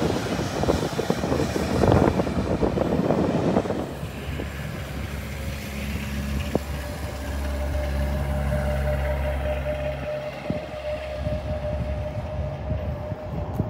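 Jet airliner engines running: a rough, noisy roar for the first few seconds, then a steady low drone with a thin, steady whine above it.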